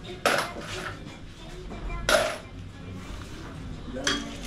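A few sharp metallic clanks of a utensil against a large steel cooking pot, each ringing briefly; the loudest comes about two seconds in.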